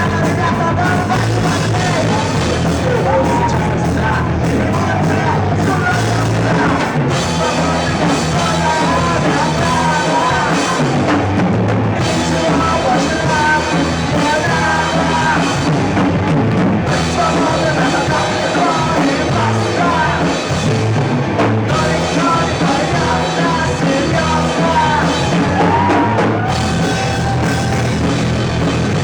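Rock band playing live, with a drum kit and a melodic lead line wavering over a steady low part.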